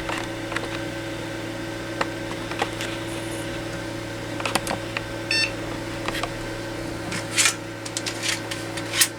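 Pentium 4 desktop computer running with a steady hum, with scattered clicks and short rattling bursts that come more often in the second half, and a brief high beep about five seconds in.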